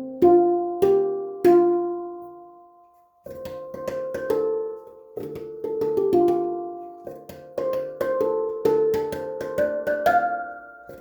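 Twelve-note steel handpan played by hand: a few struck notes ring out and fade to a brief pause, then a quicker run of notes follows, each ringing on with its overtones.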